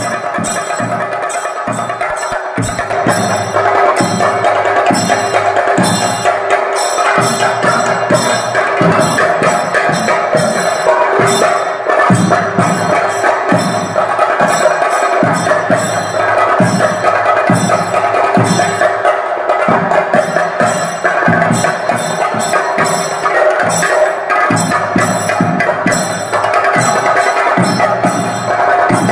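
Kerala temple percussion: chenda drums struck with sticks in a fast, even rhythm, with a steady ringing tone above the strokes.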